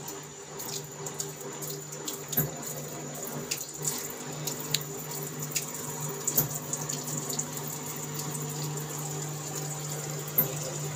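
Washing machine spinning clothes: a steady motor hum with water rushing and draining out of the spinning load, and scattered small clicks.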